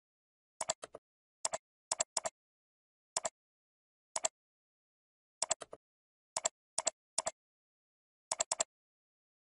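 Computer mouse clicking: about a dozen sharp clicks, most of them in quick press-and-release pairs, spaced irregularly, with dead silence between.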